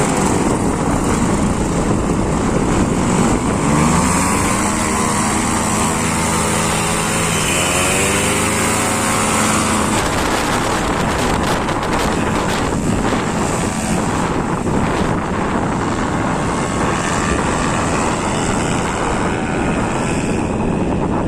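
Paramotor engine and propeller running hard, its pitch rising and falling with the throttle during the first half, then a steady noisy rush.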